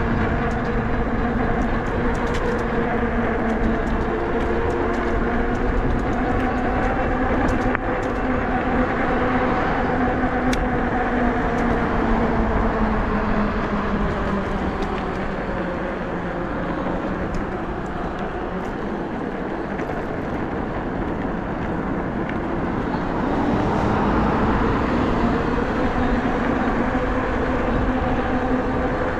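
Nakto F6 electric fat bike riding on pavement under throttle: a steady hum from its hub motor and fat tyres, dropping in pitch midway and rising again near the end as the speed changes, over wind rumble on the microphone.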